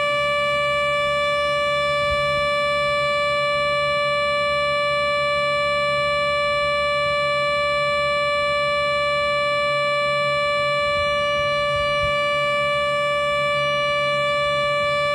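Synthesized Federal Sign & Signal Thunderbolt 1000 siren, made in Audacity, played back through laptop speakers: one steady held tone with many overtones, its pitch unchanging, over a low hum.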